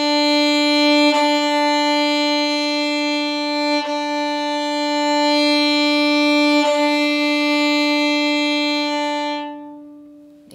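Violin playing long bowed whole notes on one sustained pitch, the bow changing direction about every three seconds, each note swelling and then fading as a crescendo-decrescendo tone exercise. The last note tapers away shortly before the end.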